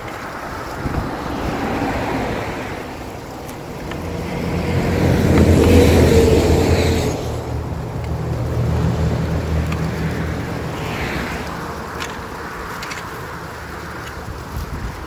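Rake working through sticks and debris in shallow water at a culvert rack, with splashing and sharp scrapes. A motor vehicle passes on the road alongside, swelling to the loudest point about six seconds in and then fading.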